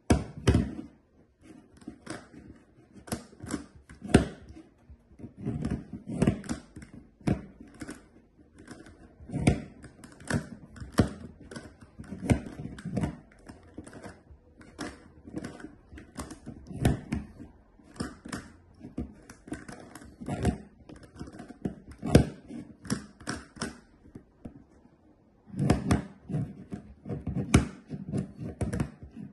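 GAN Megaminx being turned with one hand: rapid, irregular plastic clicks and clacks as its faces snap round, with a pause of about a second and a half near the end.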